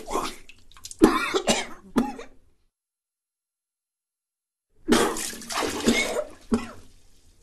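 Vomiting sound effects: retching and gagging with wet, splashing liquid, in two bursts separated by about two seconds of dead silence.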